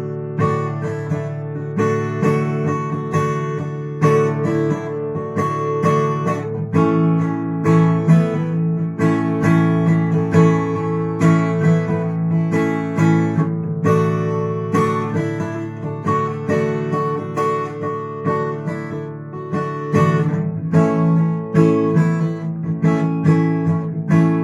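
Acoustic guitar strummed in a steady rhythm, moving between D major and A major chords, with a finger lifted off the chord shapes to change their colour.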